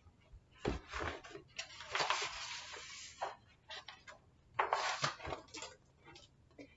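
Pages of a large paper picture book being turned by hand: paper rustling, with a longer swish about two seconds in and another rustle about five seconds in.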